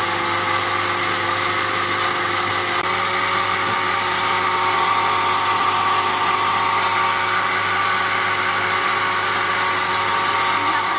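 Electric kitchen blender running steadily at full speed, blending a jar of chopped fruit and milk into juice: a continuous motor whine with a steady hiss.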